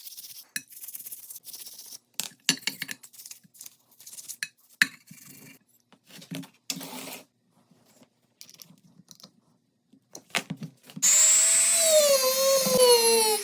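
Scattered clicks and light metal knocks from small parts being handled. About eleven seconds in, a small electric power tool starts and runs loudly, its pitch wavering and dipping as it works.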